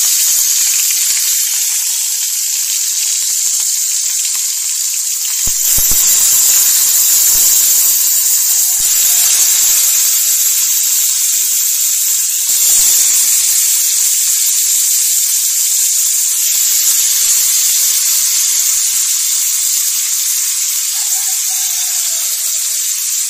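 Pieces of marinated catla fish frying in hot mustard oil in a steel kadai: a loud, steady sizzle that steps up twice as more pieces go into the oil.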